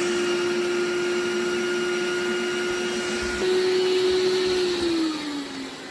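MOVA S10 Plus robot vacuum's suction fan running at boosted power, as it does when it detects carpet: a steady whine. A little after three seconds in it gets louder; near the end its pitch drops and it fades as the fan slows down.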